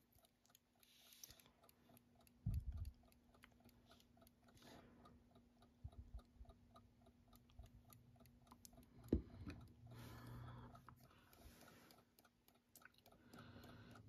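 A bare Westclox Big Ben Style 7 alarm clock movement ticking faintly and evenly, just set going by a dab of oil on its escapement after standing still dry. A couple of handling knocks come through, the loudest about two and a half seconds in and another about nine seconds in.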